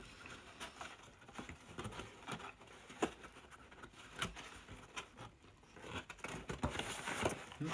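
Close-up eating sounds: pizza being chewed, with irregular soft clicks and light rustles from the cardboard pizza box being handled, a little busier near the end.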